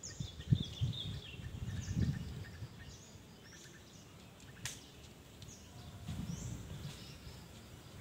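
Gusts of wind buffeting the microphone, with small birds giving short high chirps here and there and a single sharp click a little past halfway.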